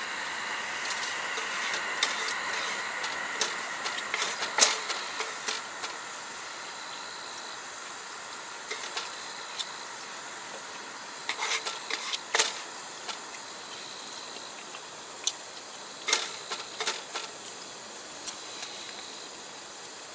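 Steady hiss of a camp stove burner under a simmering hot-pot, with scattered sharp clinks of chopsticks and utensils against a metal bowl and pot while eating.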